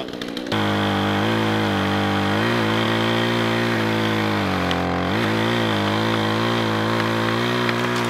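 Remington 46cc two-stroke chainsaw running at high speed as it cuts into a tree trunk. It comes in abruptly about half a second in, and its pitch dips briefly and recovers several times as the chain bites into the wood.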